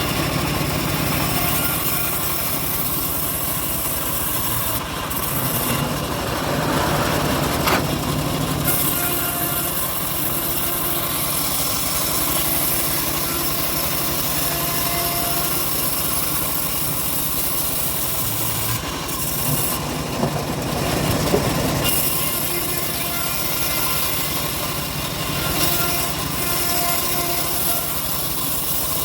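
Homemade bandsaw mill cutting through an old teak log: the steady rasp of the band blade in the wood over the constant running of its drive engine.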